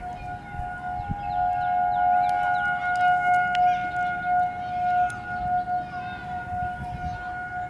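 Tornado warning sirens in the background sounding one steady, unchanging tone that swells and fades in loudness.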